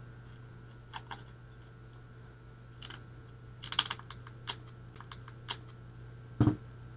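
Scissors snipping at and handling a strip of duct tape: scattered sharp clicks and crackles, busiest about four seconds in, then a dull knock on the bench near the end. A steady low hum runs underneath.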